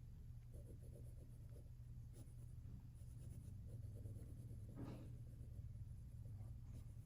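Faint scratching of a mechanical pencil's graphite lead drawing on paper, in short irregular strokes.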